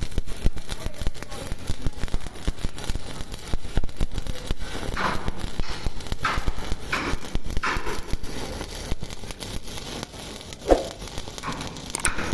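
Stick welding arc from a 7018 electrode, crackling and sizzling irregularly as it burns along the plate. A short, sharp sound stands out about ten and a half seconds in.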